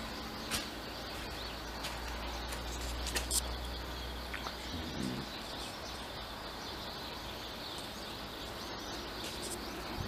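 Countryside outdoor ambience: a steady insect hiss, with a few short sharp sounds and a low rumble between about two and four seconds in.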